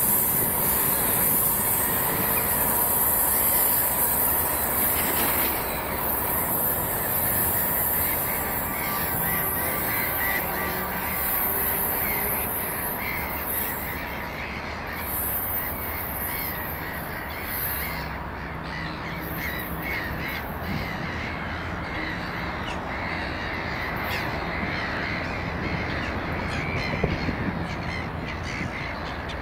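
ER2K electric multiple unit rolling away along the track, its running noise fading. From about a third of the way in, crows caw repeatedly over it.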